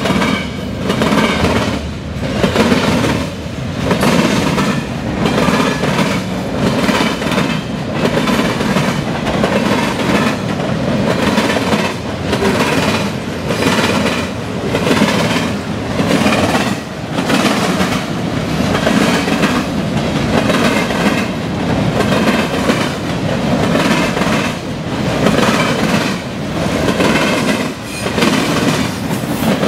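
Freight cars of a mixed freight train rolling past steadily, their wheels clattering over the diamond crossing in a repeating rhythm.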